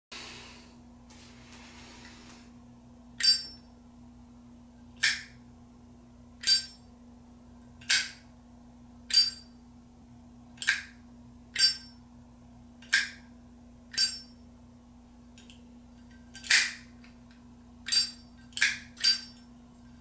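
Zippo Classic Street Chrome lighter's hinged lid being flipped open and snapped shut over and over: about thirteen sharp metallic clicks, each with a brief ring. They come a second or two apart and bunch closer together near the end. Heard through a camera's built-in microphone.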